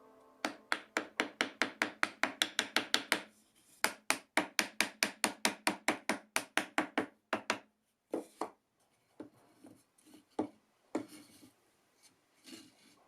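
A piece of wood being worked by hand with fast back-and-forth rubbing strokes, about six a second, such as sanding or filing. There are two runs of strokes, then a few separate scrapes and knocks near the end.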